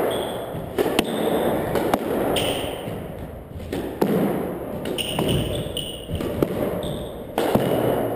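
Squash rally: sharp cracks of racquet on ball and ball on the walls about once a second, ringing in the enclosed court, with short high squeaks of sneakers on the hardwood floor.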